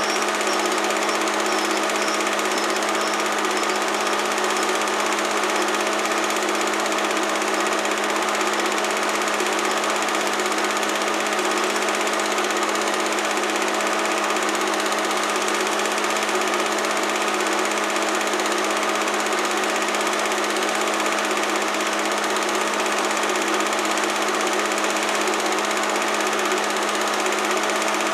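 Home-movie film projector running steadily: a constant mechanical whirr of the film transport.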